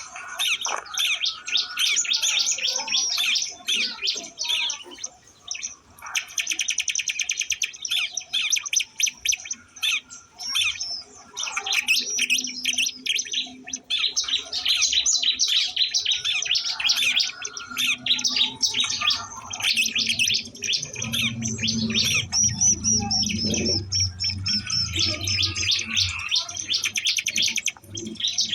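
Ciblek (prinia) birds chirping and calling continuously in fast, high trills.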